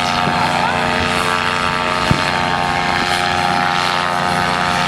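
Paramotor engine and propeller running steadily at high power during a powered paraglider takeoff, with wind noise over it.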